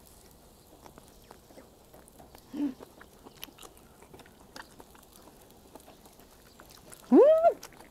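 Close-miked chewing of a piece of grilled hagfish: faint, soft wet mouth clicks and smacks. The eater gives a short hum about two and a half seconds in, and a louder hum that rises and then falls near the end.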